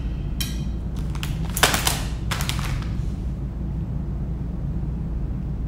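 Plastic sauce packet crinkling as it is squeezed out over noodles, in four short rustles over the first three seconds, over a steady low hum.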